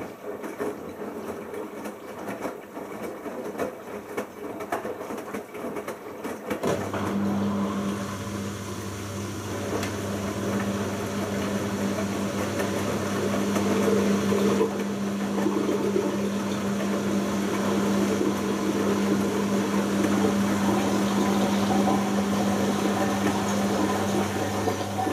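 Bosch Logixx washing machine with water in the drum: irregular clicking and sloshing, then about six and a half seconds in a steady mains-frequency hum starts and runs on with gurgling water above it. The hum is typical of the drain pump emptying the drum during the final rinse.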